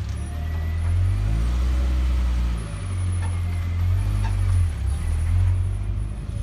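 Wind buffeting the microphone: a heavy low rumble that swells and drops unevenly, with a brief lull a little before halfway.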